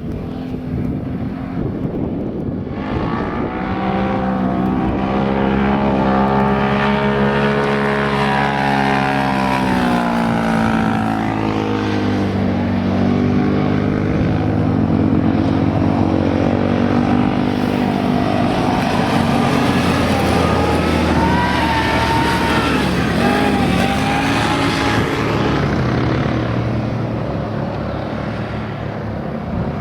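ATV engines revving under riding, the engine note climbing and dropping repeatedly. A rougher, noisier sound opens, and the pitched engine note comes up about three seconds in.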